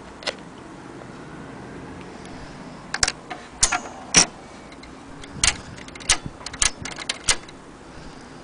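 Keys of a vintage Triumph-Adler manual typewriter being typed. A single clack comes just after the start, then a pause of about three seconds, then a run of about a dozen sharp, unevenly spaced typebar strikes.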